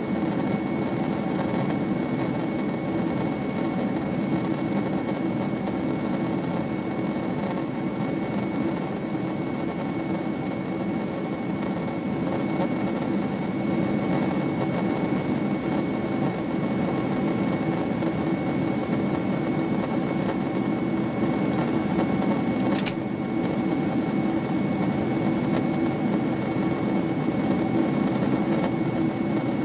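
Steady cabin noise of a Boeing 767-300ER's twin jet engines and rushing air during the climb, heard from inside the cabin. A thin steady high whine cuts off with a click about 23 seconds in.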